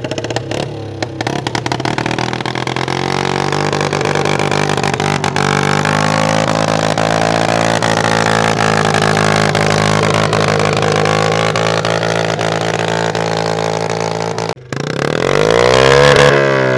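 Honda 50R mini bike's small single-cylinder four-stroke engine running at a steady fast idle just after starting. Near the end it breaks off for an instant, then is revved once, its pitch rising and falling back.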